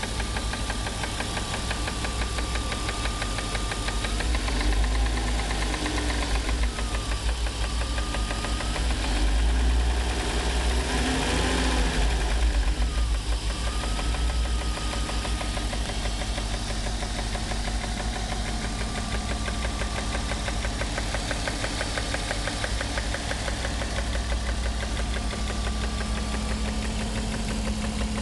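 BMW E36 325is inline-six engine idling with a rapid, even ticking and slight roughness, revved up and down a few times partway through before settling back to idle. It is an ungodly noise that began after a long run at over 135 mph; no fault codes are set, and the engine smooths out above idle.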